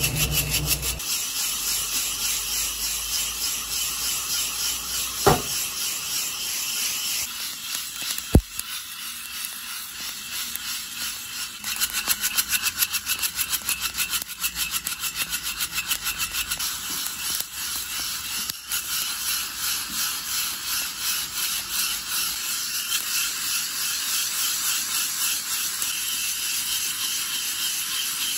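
Coffee beans being roasted in a hand-held wire-mesh roaster over a gas flame, rattling and rubbing against the mesh in a quick, steady back-and-forth shaking rhythm. Two sharp clicks stand out about 5 and 8 seconds in.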